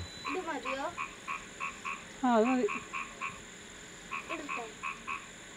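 Frogs croaking in a steady series of short calls, about three a second, pausing briefly a little after three seconds in and then resuming. A person's voice cuts in briefly a little over two seconds in.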